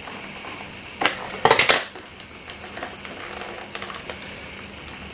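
A small cardboard retail CPU box being handled and worked open by hand: low rustling, with a sharp crackle about a second in and a quick cluster of crackles and clicks just after, the loudest moment.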